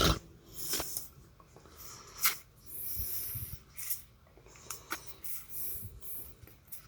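Irregular rustling and crinkling of wrapped trading-card bundles and cards being handled, with scattered light clicks and a louder crinkling stretch about three seconds in.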